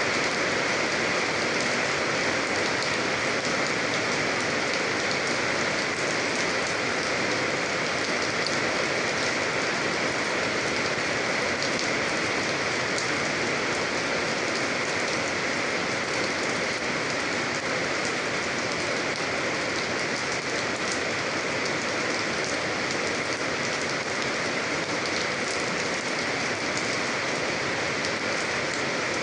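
Steady rain falling on a surface, an even hiss of many drops with fine pattering ticks.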